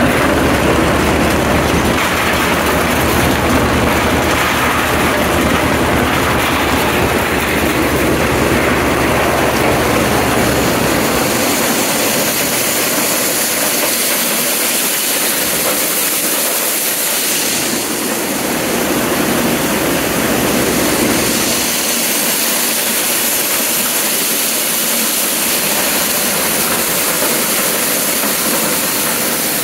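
A John Deere 43 corn sheller running as it shells ears of popcorn, a steady loud rattle and rush of ears, kernels and cobs going through the machine, driven by a John Deere 720 two-cylinder tractor. The tractor's low engine note is strongest for the first ten seconds or so, then fades under the sheller's noise.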